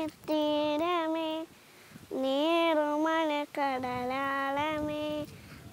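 A young girl singing unaccompanied: three phrases of long held notes with small wavering turns, separated by short breaths.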